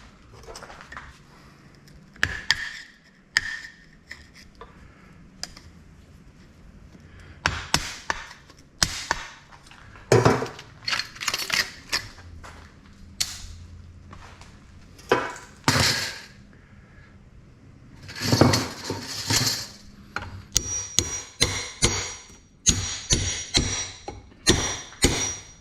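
Irregular knocks and metallic clatter as the stacked steel laminations of a transformer core are knocked and worked loose, with a scraping stretch in the middle. Near the end comes a quick run of sharp clinks with a high ring, thin steel plates striking one another.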